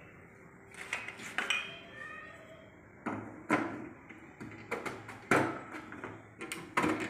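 Glass light bulb being fitted into a bulb holder: a string of sharp clicks and light clinks, about eight in all.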